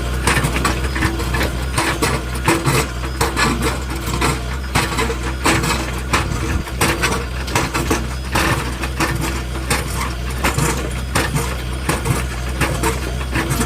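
JCB 3DX backhoe loader's diesel engine running steadily, with frequent irregular sharp clanks and knocks throughout.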